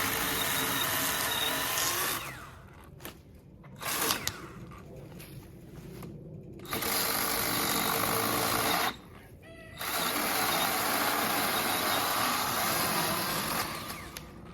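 Cordless electric chainsaw cutting through cherry wood. There are three long cuts, each a steady motor whine with the chain ripping through the wood, separated by short pauses, plus a brief blip of the trigger about four seconds in.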